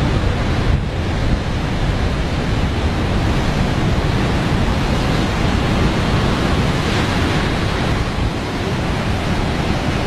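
Heavy surf breaking over rocks: a steady, dense rush of water noise, with wind buffeting the microphone.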